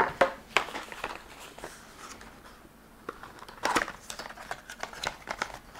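Cardboard packaging being handled: short rustles and light taps as a small black cardboard box is lifted out of a box and turned in the hands. There are a few near the start, a quieter pause, then more from about two-thirds of the way through.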